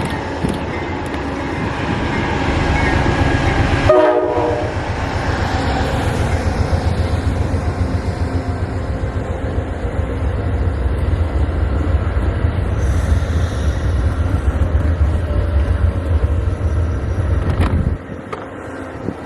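A passenger train passing at speed on the Northeast Corridor, a heavy steady rumble of wheels on rail, with a short horn blast about four seconds in. The rumble drops off abruptly near the end.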